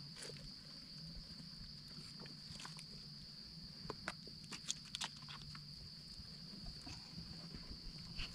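Quiet forest background with a steady high insect drone, broken by scattered small clicks and scrapes as a knife trims a wild mushroom's stem and the leaf litter is handled.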